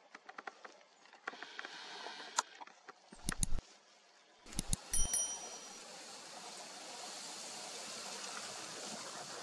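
Subscribe-button animation sound effect: sharp clicks, then a short ringing bell-like ding about five seconds in. Faint clicks before it and a steady outdoor hiss after it.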